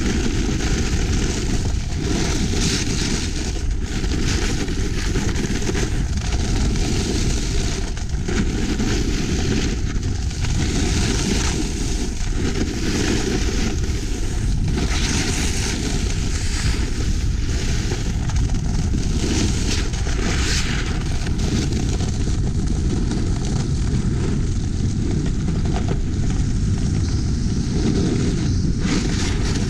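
Wind rushing and buffeting over a GoPro Hero5 Black's microphone at 20 to 50 mph downhill on snow, a steady loud rush with a deep rumble and irregular gusty surges, mixed with the hiss and scrape of snow beneath the rider.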